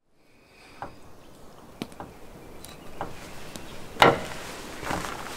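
A handful of light knocks and clicks, spread a second or so apart, the loudest about four seconds in, over a faint steady background hiss.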